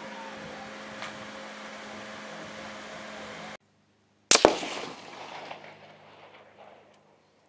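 One rifle shot from an AR-15 with a 22-inch JP barrel and muzzle brake: a loud, sharp report with a quick second crack, then echoes dying away over about two and a half seconds. Before it, a few seconds of steady background hiss break off suddenly.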